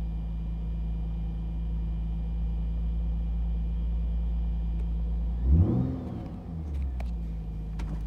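Nissan 350Z's 3.5-litre V6 idling steadily at about 1,100 rpm in Park, with a brief louder swell and wobble in the engine note about five and a half seconds in. The owner takes the idle as a sign that the car's occasional misfire is fixed.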